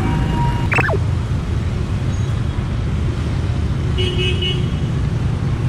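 Busy street traffic, mostly motor scooter engines running in a steady low rumble. A brief falling squeal sounds near the start, and a short horn beep about four seconds in.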